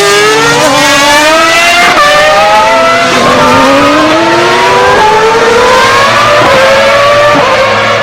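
Ferrari 412 T2 Formula One car's 3.0-litre V12 at full throttle, its pitch climbing through the gears with quick upshifts, a sharp drop in pitch about every one to two seconds.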